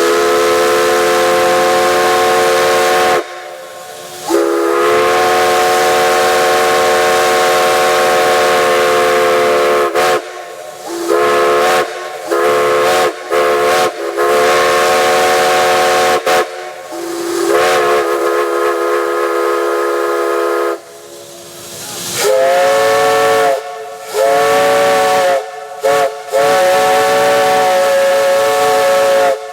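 Steam locomotive chime whistles blowing a series of long blasts and short toots, each a chord of several steady notes, over a constant hiss of escaping steam. Near the end a whistle with a different, higher chord sounds a run of short blasts.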